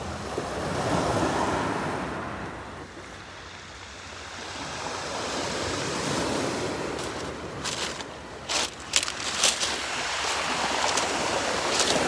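Sea waves washing against the shore, swelling and fading every few seconds. A quick run of sharp clicks and knocks comes near the end.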